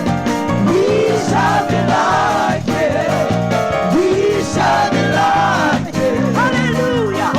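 Live gospel music: a solo singer's voice sliding through ornamented phrases over sustained keyboard accompaniment.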